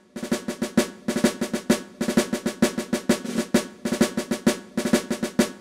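Intro music of snare drum cadences: quick strokes and rolls in phrases of about a second, with short breaks between them.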